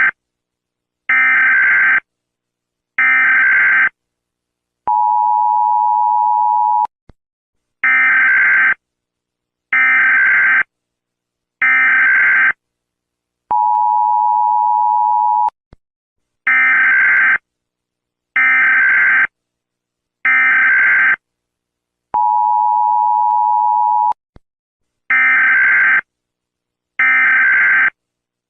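Emergency Alert System tones: harsh bursts of digital data noise about a second long, sent in sets of three, each set followed by about two seconds of a steady two-tone beep, the pattern repeating over and over.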